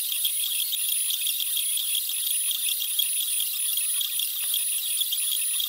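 Small CNC router spindle running at high speed while its fine bit carves a wooden board, a steady high-pitched whine with a faint gritty cutting noise.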